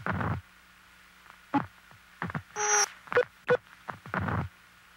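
A looped, electronic-sounding sound collage: a few short clicks, a low thud and a loud noisy blip with a buzzing tone, repeating about every four seconds over a faint steady hum.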